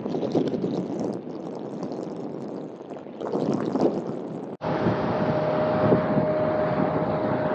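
Jet airliner engine noise, a rough, crackling rumble. About four and a half seconds in it cuts off abruptly and gives way to a steadier engine rumble with a steady whine over it.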